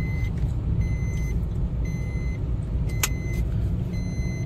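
Steady low road and engine rumble inside a moving car, with a high electronic beep repeating about once a second and a sharp click about three seconds in.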